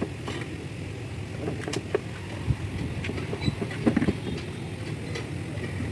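Scattered metallic clinks and knocks, as of hand tools on engine parts, over a steady low rumble.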